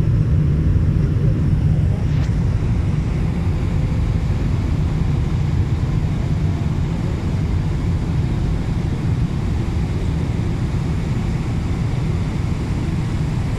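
Steady low rumble of a jet airliner in flight, engines and airflow heard from inside the passenger cabin.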